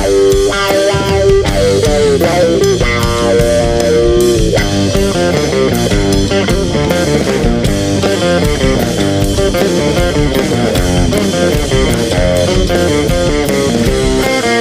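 Instrumental rock music led by electric guitar over bass and a steady drum beat.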